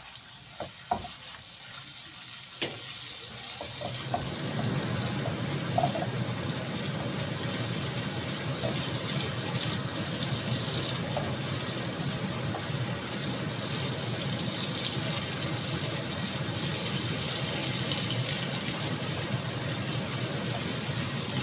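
Chopped garlic and shallots sizzling in hot oil in a nonstick wok as they are stir-fried until fragrant, stirred with a silicone spatula. A few light spatula clicks at first, then about four seconds in the sizzle swells into a steady hiss.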